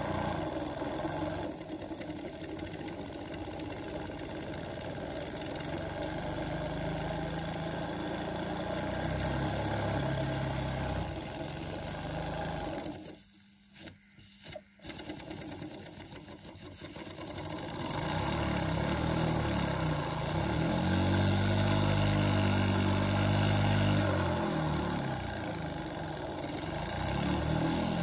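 A small model steam engine running, its speed rising and falling several times, with a brief drop-out about halfway through.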